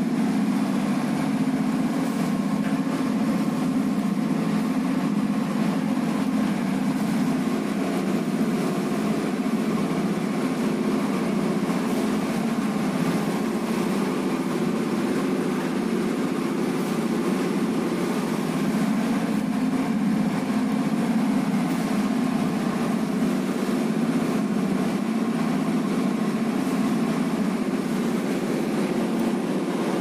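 Steady machine hum running without a break, strongest low down, with no rise or fall.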